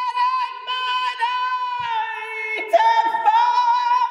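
A single voice singing long, high held notes that slide up and down between pitches, with a short break about two and a half seconds in.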